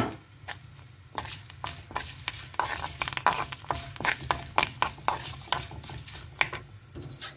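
Steel spoon stirring and scraping in a small metal pan, making irregular clinks and scrapes, while ghee sizzles around cashews, black pepper, cumin and freshly added curry leaves: a tempering (thalippu) being fried.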